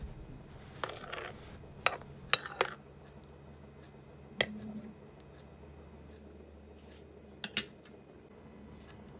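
Metal spoon stirring a thick ice cream mixture in a bowl, clinking against the bowl's side at irregular intervals with short scrapes. The loudest is a quick double clink near the end.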